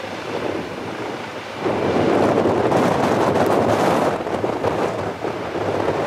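Strong gusty wind buffeting the microphone over a twin-turbine Eurocopter EC135T2 helicopter running in a low hover just after lift-off. A gust swells about a second and a half in and eases after about four seconds.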